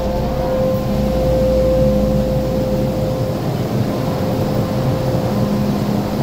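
MTR M-Train electric train standing at the platform with its doors open, its onboard equipment giving a steady hum and whine. A low drone under it eases off about halfway through.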